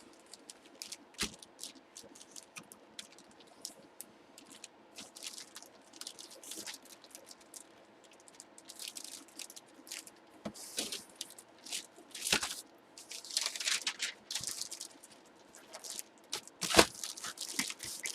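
Sports trading cards and their plastic sleeves and wrappers being handled: crinkling and rustling with many small clicks and taps. There are a few sharper knocks, the loudest near the end.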